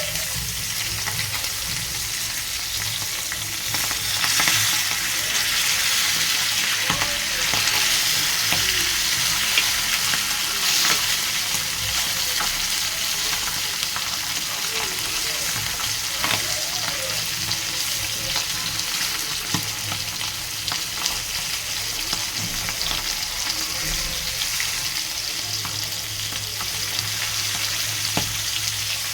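Food frying in hot oil in a pan: a steady sizzle with occasional sharp clicks, a little louder from about four to eleven seconds in.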